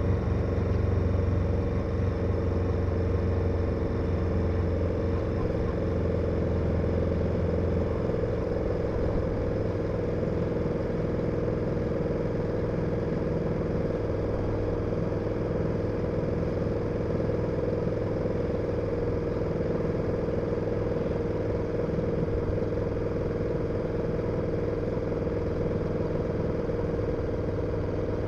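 KTM 1290 Super Adventure's V-twin engine running steadily. A deeper low rumble eases off about eight seconds in, and after that the sound stays even.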